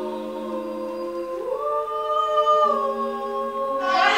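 Several voices singing a cappella, holding long notes in close harmony, with the chord shifting twice. Near the end a louder, busier burst of voices comes in.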